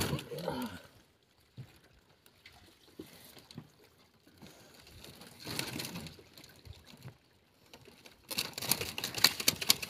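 Faint splashing and knocking as lobsters are handled in a seawater net cage, ending in a burst of rapid clattering taps in the last second and a half.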